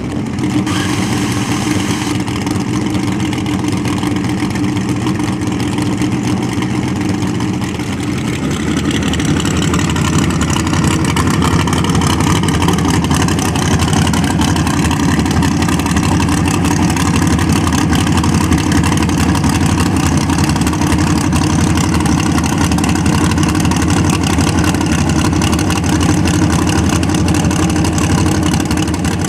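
Drag race cars' engines running loud and steady, growing louder and fuller about eight seconds in.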